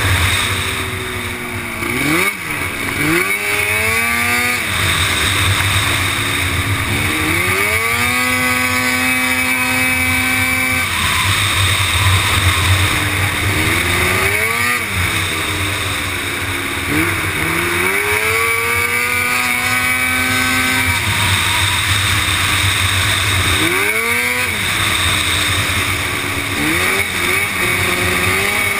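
Racing quad's engine heard onboard at full race pace, its pitch climbing hard and then dropping several times as it accelerates down the straights and slows for the corners, over a steady rushing noise.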